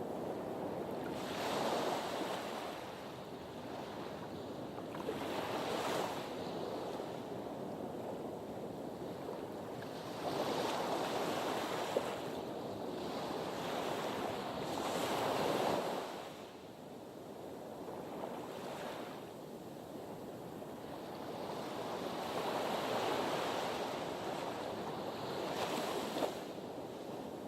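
Sea waves washing against a harbour breakwater, a rushing surf hiss that swells and falls back every few seconds, with one longer surge midway.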